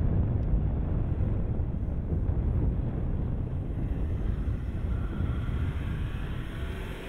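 A 2013 Range Rover driving across sand dunes, heard under a low wind rumble on the microphone. The sound eases slightly near the end.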